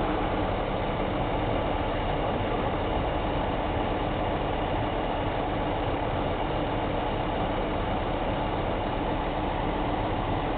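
John Deere tractor engine running steadily at an even speed, with no revving.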